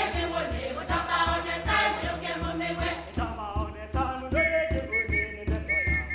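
Music: a group of voices singing over a steady bass beat.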